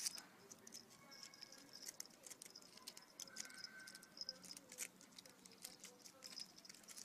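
Near silence broken by faint, irregular clicks and small taps.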